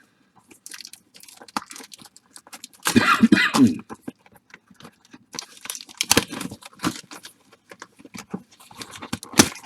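Wrappers of baseball card packs crinkling and tearing as packs are ripped open by hand, with a louder, longer rip about three seconds in and a sharp snap near the end.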